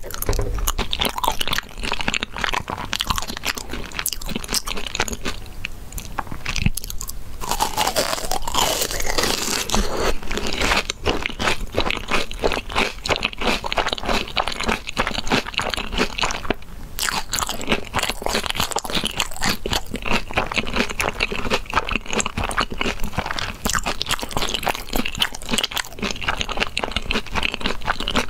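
Crunching and chewing of a breaded, deep-fried ball with a crisp coating, a dense, irregular crackle that goes on with only a couple of short pauses.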